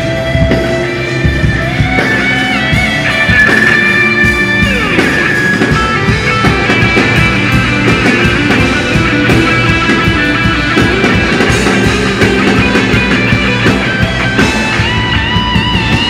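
Rock band playing: an electric guitar carries a lead line of long held notes that bend in pitch, over bass and drums.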